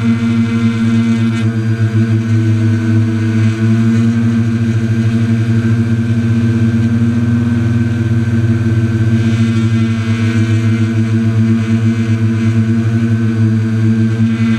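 Small quadcopter's electric motors and propellers running steadily, a loud even buzz with a low hum underneath, heard close up from on board the drone.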